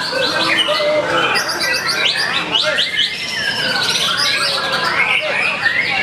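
Several caged songbirds singing at once, white-rumped shamas among them: a dense, unbroken mix of fast repeated trills and gliding whistles.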